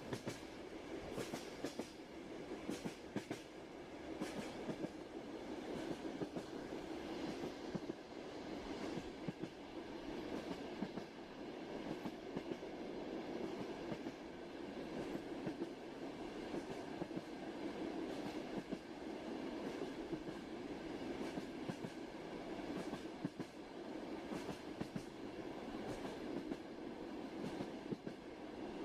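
Train ambience: a steady rumble of a rail car in motion, with the frequent clack of the wheels on the track.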